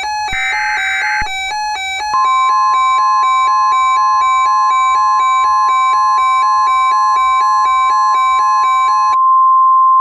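Emergency Alert System header: a short raspy burst of SAME digital data tones. About a second later a steady single-pitch attention tone near 1 kHz, the 1050 Hz weather-radio alert tone, sounds for about eight seconds and cuts off suddenly. Under it a looping pattern of alternating electronic tones plays until about a second before the end.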